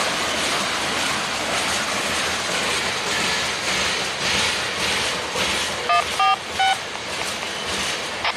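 Freight train of tank cars rolling past, a steady rush of steel wheels on the rails. About six seconds in, three short electronic beeps sound in quick succession.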